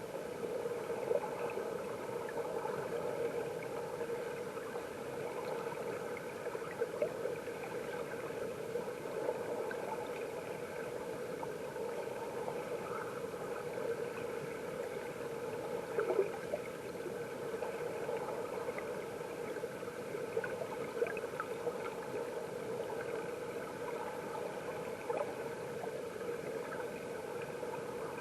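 Mountain stream water flowing, heard through a camera held underwater: a steady rush with scattered faint clicks and pops.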